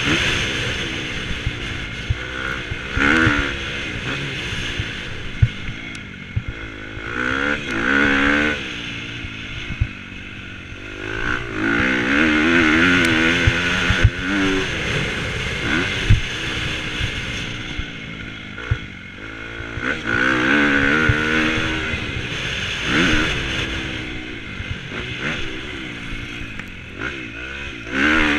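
Motocross dirt bike engine revving up and dropping off again and again as it is ridden hard around the track, heard from the rider's helmet camera with wind rushing over it. Occasional sharp knocks are heard over the engine.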